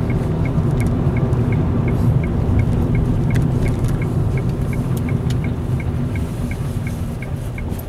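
A car's turn-signal indicator ticking evenly, about three ticks a second, over the steady low rumble of the engine and tyres inside the cabin as the car makes a turn.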